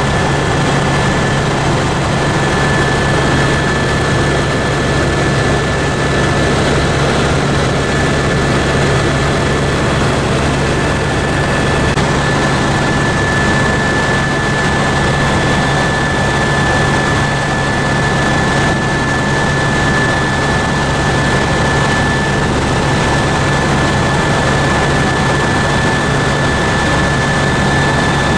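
Tour helicopter in steady cruise heard from inside the cabin: a constant drone of turbine and rotor with a steady high whine running through it.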